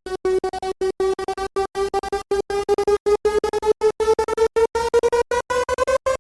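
Synthesized sound effect: a buzzy electronic tone that climbs slowly in pitch, chopped into a stutter by rapid, irregular dropouts.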